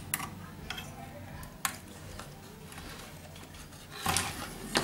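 A few sharp clicks and light clinks from handling a CRT TV's power-supply circuit board and its components, with a louder clatter about four seconds in.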